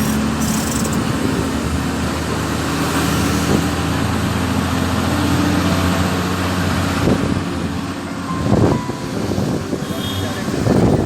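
Motor vehicle engine running steadily with road noise, a low hum throughout and a brief louder swell about eight seconds in.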